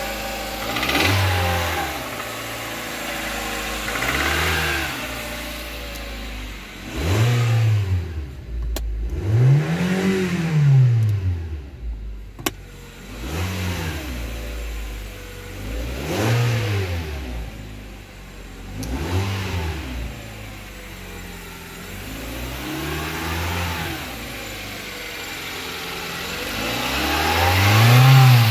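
2007 Hyundai i30's 2.0-litre G4GC four-cylinder petrol engine idling and being revved about nine times. Each rev rises and falls back to idle within a second or two. The highest rev comes about ten seconds in and the loudest near the end. The seller reports the engine as tested good.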